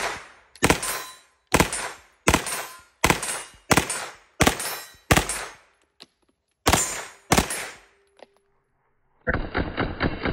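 CZ Skorpion Evo 3 A1 9mm submachine gun firing at an outdoor range. About ten loud reports come at a steady pace of roughly one every three quarters of a second, with a short break after about five seconds. Near the end the gun fires a rapid full-auto burst, many shots run close together at a high rate of fire.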